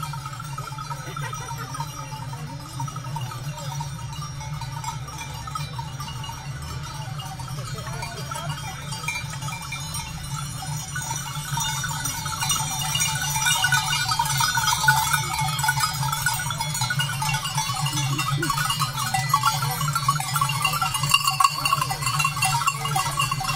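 A herd of goats coming down a road, their bells ringing and jingling with occasional bleats. It grows louder about halfway through as the herd passes close.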